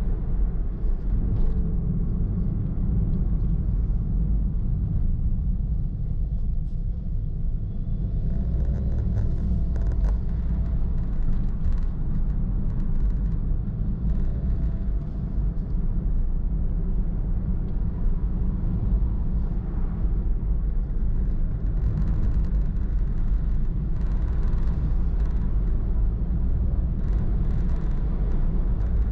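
Steady low rumble of a car being driven on a paved road, engine and tyre noise together, with faint light clicks now and then.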